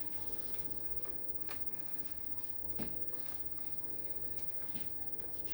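Faint handling noises: soft rustling with a few light clicks, the clearest about one and a half and about three seconds in.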